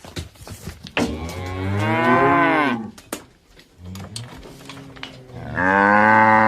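Cattle mooing: two loud, long moos, about a second in and near the end, with a fainter low moo between them.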